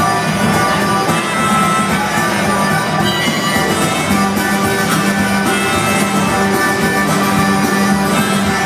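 Acoustic guitar strummed steadily, with long held harmonica notes over it in an instrumental passage of a country song played live.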